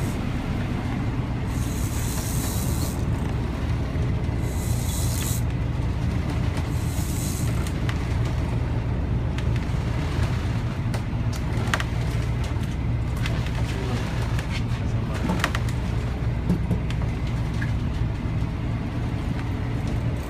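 Sport-fishing boat's engines running steadily with a low drone. Three short bursts of hiss come in the first seven seconds, and a few sharp clicks come in the middle.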